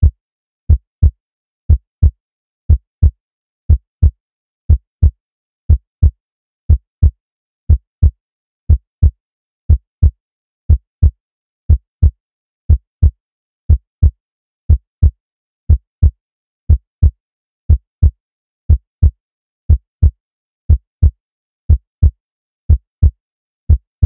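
Normal human heart sounds: a steady lub-dub rhythm of paired low thumps, about one pair a second. The lub is the first heart sound, from the closing of the mitral and tricuspid valves, and the dub is the second, from the closing of the aortic and pulmonary valves.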